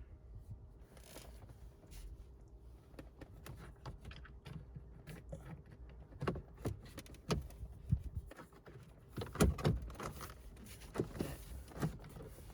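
Plastic dashboard trim pieces of a BMW E46 being handled and pressed back onto their pin clips: scattered clicks and knocks, sparse at first and more frequent from about halfway, with the loudest knocks about three-quarters of the way through.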